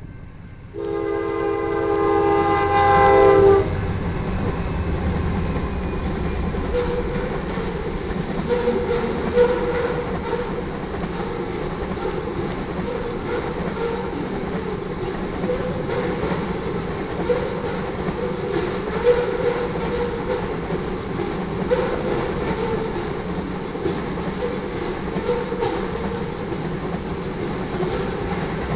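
A diesel locomotive's multi-tone air horn sounds one blast of about three seconds, close by, as the train arrives. Tank cars of a crude-oil train then roll past with a steady rumble and regular wheel clicks over the rail joints.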